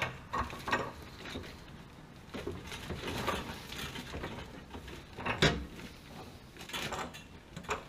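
Irregular metallic clicks, knocks and scraping of tools and hands working on a gas water heater's pipe fittings, with a sharper knock about five and a half seconds in.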